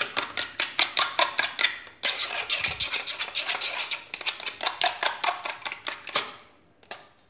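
Metal spoon beating egg whites in a plastic bowl: quick, even clicks of the spoon against the bowl, about seven strokes a second. There is a short break about two seconds in, and the beating dies away about six seconds in.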